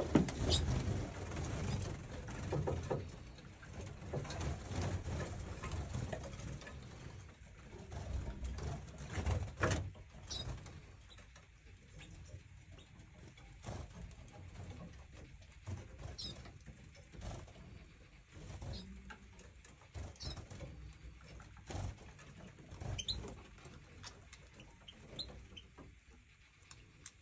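Domestic canaries in an aviary giving scattered short, high chirps, a few seconds apart through the second half. Underneath are soft rustles and thumps, busier in the first ten seconds.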